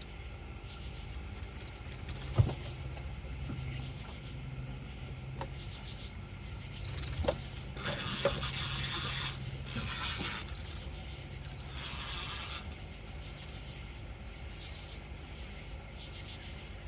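Night insects trilling with a thin, high, on-and-off tone, over a low steady hum. A couple of sharp knocks come early, and three short bursts of rushing, hissing noise come about eight, ten and twelve seconds in.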